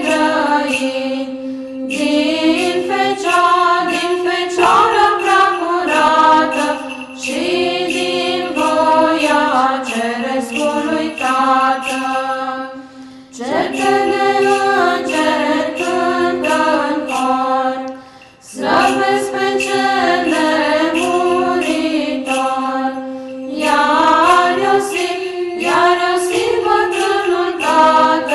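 Women's choir of nuns singing a Romanian Christmas carol (colind) in phrases over a steady held drone note, with a light, regular beat. The singing breaks off briefly twice between phrases.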